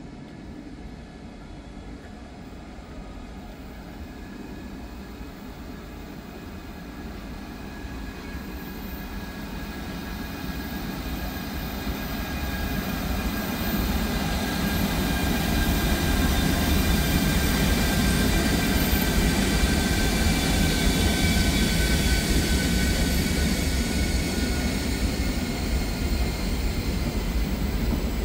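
Freight train approaching and passing. It grows louder over about the first fourteen seconds, then holds as a steady, loud rumble of wagons on the rails, with several thin high steady tones above it.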